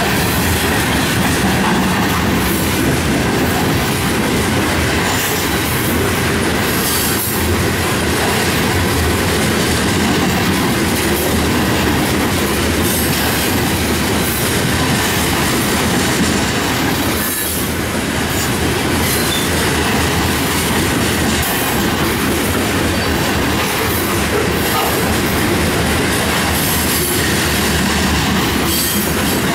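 Covered hopper cars of a freight grain train rolling past close by: steady rumble of steel wheels on the rails with clickety-clack over the joints and occasional high wheel squeal.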